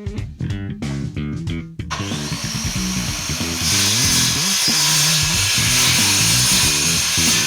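A power tool cutting wood, most likely the walnut handle scales. It is a steady hissing grind that starts about two seconds in and gets louder and brighter about halfway through, under background music with a bass line.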